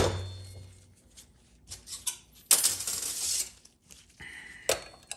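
Steel transmission parts, the Ford 4R100 sun shell, sun gear and thrust washer, clanking and clinking on a metal workbench as they are handled. A loud clank at the start, a few light clicks, a scraping metallic rattle in the middle, and a short metallic ring near the end.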